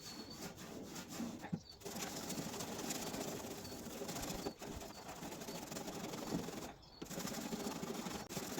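Scouring pad scrubbing back and forth over the seat box panel, a steady rubbing hiss that pauses briefly about two seconds in and again near seven seconds, as sticky residue is cleaned off with thinners.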